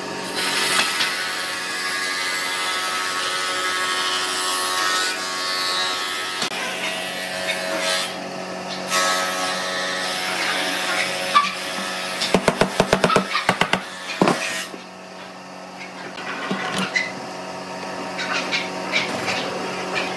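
Hand clamping of wooden strips: a quick run of about a dozen sharp clicks about two-thirds of the way through, from a one-handed bar clamp being ratcheted, with scattered knocks of wood and clamps over a steady hum.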